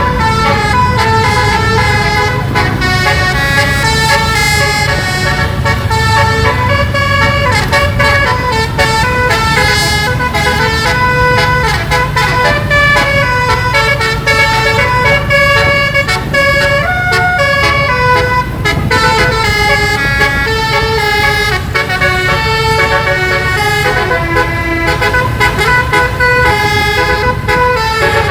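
Basuri 12-note musical air horn (telolet horn) playing a melody: loud, clear horn notes that step quickly from pitch to pitch, several notes a second, over a low steady rumble.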